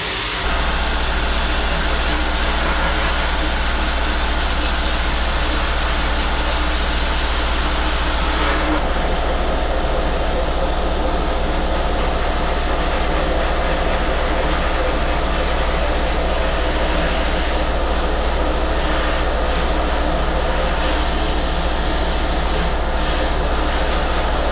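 Sandblasting a dirt-bike frame: a loud, steady hiss of air-driven abrasive blasting over a constant low hum. The hiss changes character about nine seconds in.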